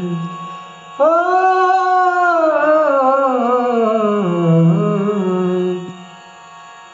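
A man's solo voice opens a Bhojpuri song with a long, wavering held note that slowly falls in pitch over about five seconds, then drops away near the end. A faint steady drone sits underneath.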